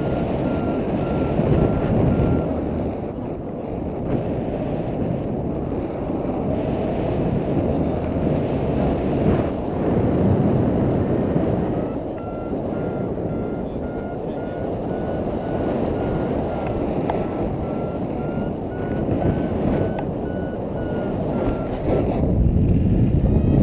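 Wind rushing over the camera's microphone in flight, with a paragliding variometer beeping rapidly at the start and again from about halfway until near the end, its pitch rising and falling slightly. Variometer beeping like this signals that the glider is climbing.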